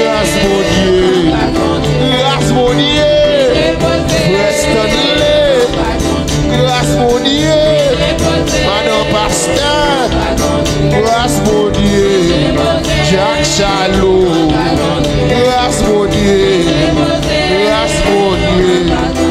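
Haitian Creole gospel praise song (louange) playing: a steady beat under a gliding melody, at an even level.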